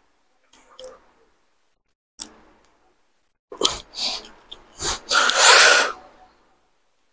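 A man's forceful breaths out while straining into flexing poses: a short puff, then a few quick huffs, then the loudest, a breathy exhale about a second long near the end.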